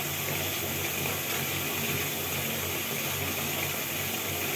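Steady hiss of running water, with a low hum underneath.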